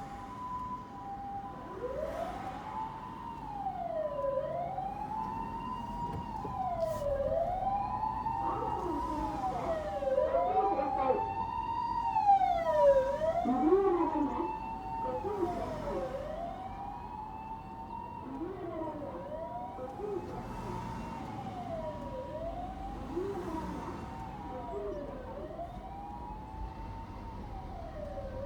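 Japanese ambulance siren on an emergency run. A steady two-note hi-lo tone is joined about two seconds in by a wail that rises and falls about every two seconds. It grows louder to a peak around the middle, then eases off.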